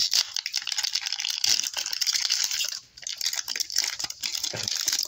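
Foil wrapper of a 2022 Donruss baseball card pack crinkling and tearing as it is pulled open by hand, with a brief pause about three seconds in, then rustling as the cards are slid out.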